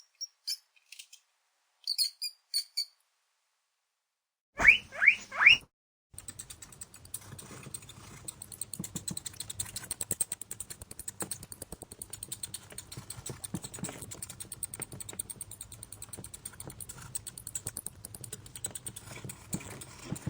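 Mouse squeak sound effects: a few faint short high squeaks, then three loud squeaks in quick succession about five seconds in. From about six seconds on, a steady rapid clicking patter like tiny scratching or scurrying.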